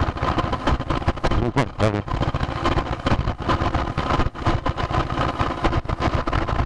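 Motorcycle engine running at low road speed, with a dense, even beat of firing pulses. A brief voice is heard nearby about two seconds in.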